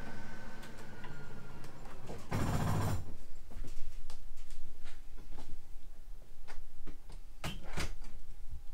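Travel-trailer doors being closed: a door swings shut with a brief rush and thud about two and a half seconds in, then light scattered clicks and footfalls, and a pair of sharp latch clicks near the end as a rear interior door is pushed closed.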